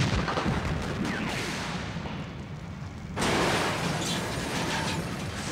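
Stunt explosion under a cable car as it is blasted into the air in a fireball: a sudden loud blast, then a continuing noisy rush that slowly fades, with a second loud burst about three seconds in.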